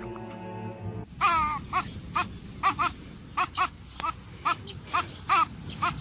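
Short, high-pitched crying calls repeated about two or three times a second, beginning about a second in as music cuts off.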